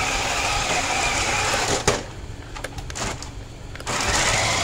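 Toy RC drift car (Jada 2025 Ford Mustang GT wide body) running on a tile floor: a small electric motor whining with the hiss of hard drift tyres. It fades about two seconds in after a click, then comes back loud as the car passes close near the end.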